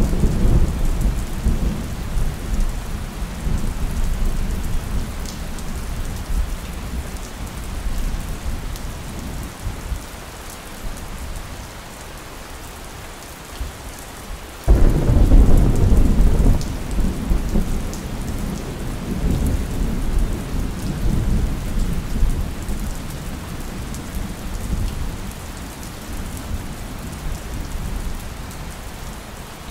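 Steady rain with rolling thunder. A low rumble fades over the first ten seconds or so, then a sudden loud clap about halfway through rumbles on for several seconds before dying back under the rain.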